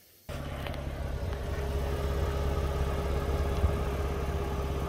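Car engine idling steadily, starting about a quarter second in.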